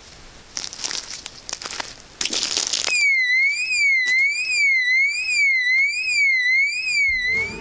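A battery motion sensor alarm sounding: a loud electronic warble that sweeps up and down about twice a second, starting about three seconds in and cutting off shortly before the end. Before it come rustling and scuffing noises.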